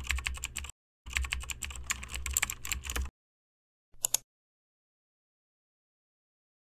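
Computer keyboard typing: rapid key clicks in two runs over the first three seconds, with a brief pause between them, then a short burst of a few keystrokes about four seconds in.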